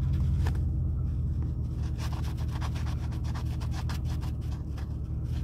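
A coin scratching the latex coating off a lottery scratch-off ticket: a quick run of short scraping strokes, thickest from about two seconds in, over a steady low hum.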